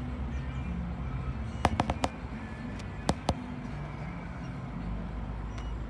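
City bus heard from inside: a steady low engine rumble, with a few sharp clicks and knocks of rattling fittings, a cluster of them about one and a half to two seconds in and two more about three seconds in.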